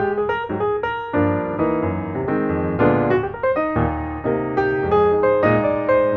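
Background piano music: a melody of struck notes over soft chords.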